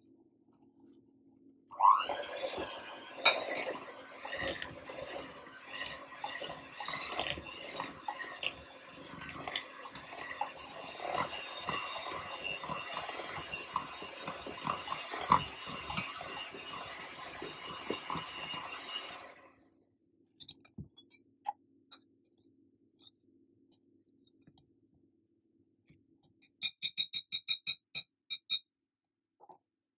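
Electric hand mixer beating margarine and caster sugar in a glass bowl, whining steadily with frequent knocks of the beaters. It starts about two seconds in and stops after about seventeen seconds. Near the end comes a short run of quick, light ticks.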